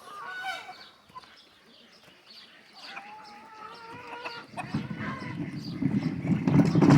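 Farmyard chickens clucking, with other poultry calling now and then. From about the middle a louder low noise builds up and covers them.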